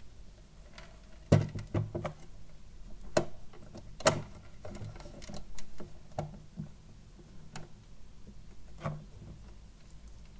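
Scattered clicks and knocks of a small plastic turtle tank and food jar being handled: the tank set down on a wooden table, its lid and feeding hatch clicked open, and the jar's cap taken off. The loudest knocks come about a second and four seconds in.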